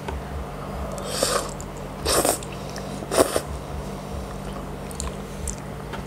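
Close-miked slurping of spaghetti in tomato sauce: three slurps about a second apart, starting about a second in.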